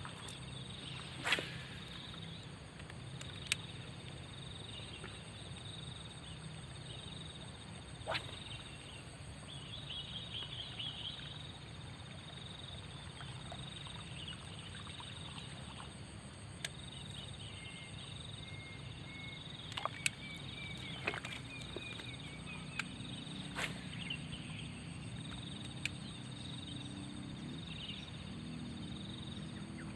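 Outdoor wetland ambience: a steady high chorus of calling animals, with a faint run of whistled notes from about 18 to 23 seconds in. Sharp clicks are scattered throughout.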